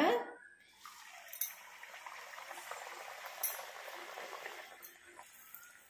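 A disc of athirasam dough frying in hot oil in a cast-iron kadai: a steady sizzling crackle that starts about a second in as the dough goes in. A couple of faint clicks come partway through.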